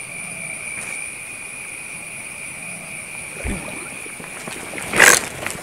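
A snakehead breaks the surface of a reedy canal with a short, sharp splash near the end. Before it there is a steady high-pitched whine over a faint hiss.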